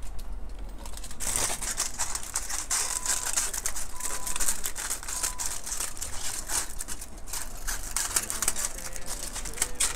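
Aluminium foil crinkling and rustling as it is handled and trimmed with scissors, a dense string of small crisp clicks.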